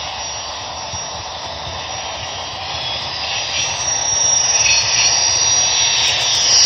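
HO-scale Union Pacific gas turbine locomotive model running with its sound on, giving a steady jet-like turbine whine with a high whistle. It grows louder about four seconds in as the locomotive draws level and passes close by.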